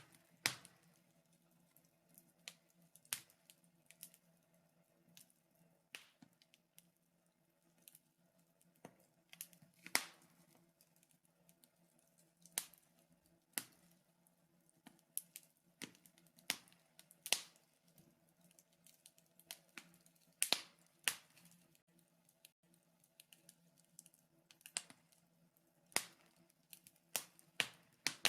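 Wood fire in a fireplace crackling, with sharp, irregular pops and snaps about once a second over a faint steady hum.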